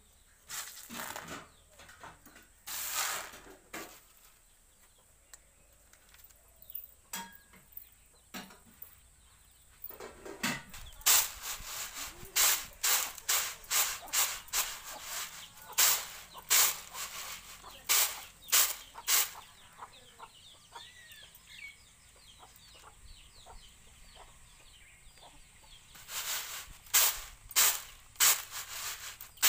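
Dried maize kernels tossed and shaken in a woven bamboo winnowing tray: a rhythmic run of rattling swishes, about one and a half to two a second, in two spells with a pause between.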